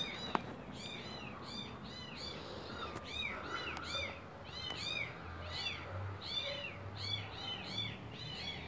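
Several kittens mewing: many short, high-pitched rising-and-falling mews, several a second and overlapping.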